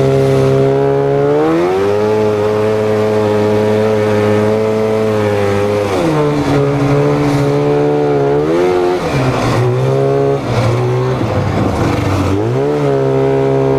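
1995 Polaris Indy Trail 500 snowmobile's two-stroke engine running under way. It revs up about a second and a half in and holds, eases off around six seconds, rises and falls several times, dips low for a moment, then picks back up to a steady pitch near the end.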